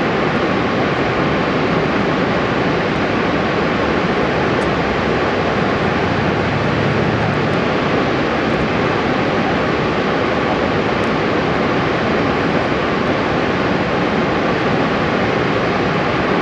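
Niagara Falls: a huge volume of water plunging into mist, heard close up as a loud, steady, unbroken rush of noise.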